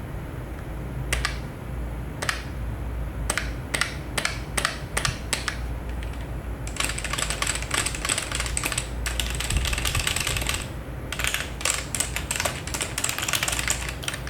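Typing on an MSI Vigor GK40 membrane keyboard: a few separate keystrokes at first, then fast continuous typing from about seven seconds in, a brief pause around eleven seconds, and fast typing again near the end. The keys give a light click despite the rubber-dome membrane switches.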